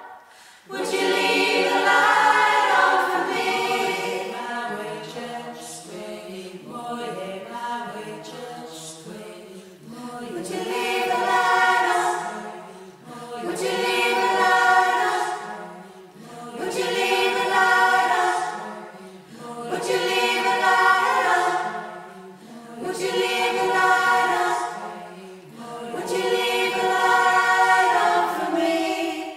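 A choir singing a slow, lullaby-like piece in long held chords. The phrases swell and fade about every three seconds over a low held note, and the singing stops near the end.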